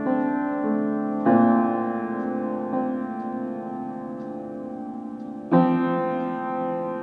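Keyboard music of slow, sustained piano-like chords. A new chord is struck about a second in and another near the end, each ringing on and fading slowly.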